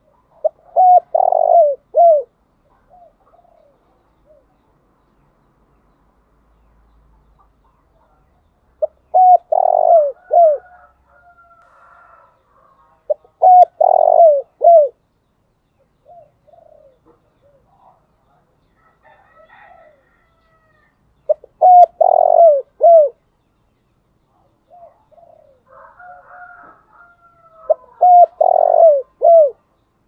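Caged spotted dove giving its calling song: five loud cooing phrases of a few notes each, spaced several seconds apart. Fainter bird calls come in the gaps between them.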